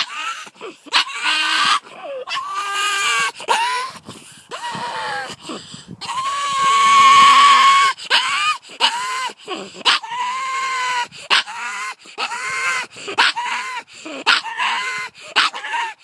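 Pug barking over and over in high-pitched calls, with one longer held call about halfway through.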